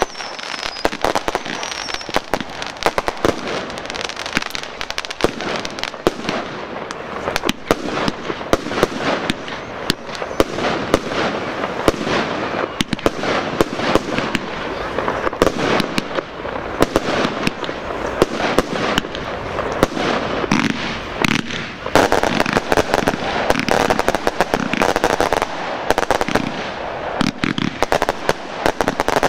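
Fireworks display: aerial shells and cakes firing and bursting in a continuous barrage, many bangs and pops in quick succession, growing denser in the last part.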